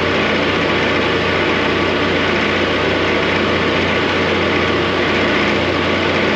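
Heavy diesel engine idling steadily, with an even low drone.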